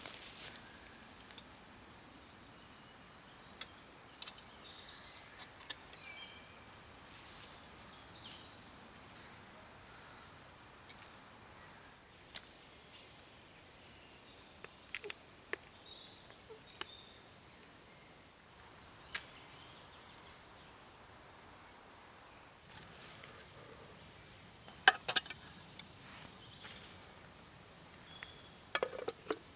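Quiet outdoor ambience with faint bird chirps and scattered sharp clicks and knocks, the loudest pair about 25 seconds in.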